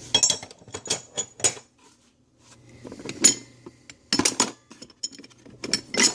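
Metal hand tools clinking and clanking against each other. There are several clusters of sharp knocks, the way pipe wrenches sound when they are set down and picked up.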